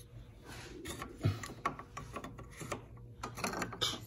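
Irregular clicks, taps and scraping as a no-spill coolant funnel's threaded metal adapter is handled and taken off the coolant filler neck, with one heavier thump about a second in. A low steady hum runs beneath.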